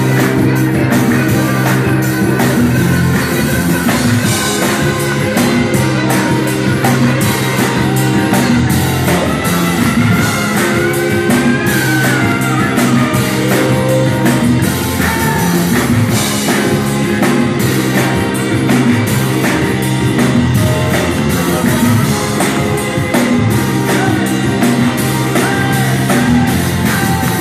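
A live band playing: a man singing into a microphone over electric guitar and a drum kit, with a steady drum beat and sustained low bass notes throughout.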